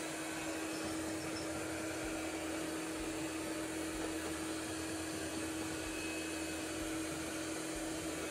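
The erabros LS1 robot vacuum running: a steady motor whir with a constant hum.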